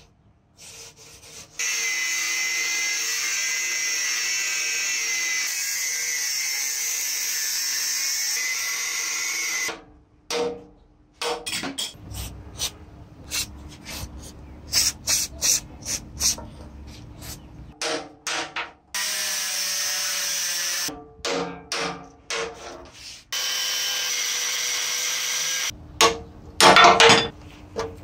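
A steady noise for about eight seconds that stops abruptly, then scattered clicks and knocks. Near the end come sharp metal clanks as an adjustable steel wrench is fitted onto a rusted fitting on the compressor tank.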